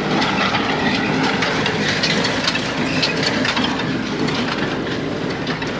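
Small square baler running behind a tractor: a steady, dense mechanical clatter of rapid clicks and knocks.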